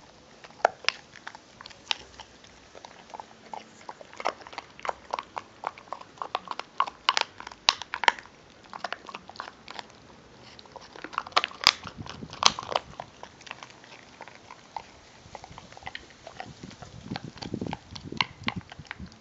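American Pit Bull Terrier chewing a raw beef rib: an irregular run of sharp crunches and bites of bone and meat, loudest about halfway through, with softer gnawing near the end.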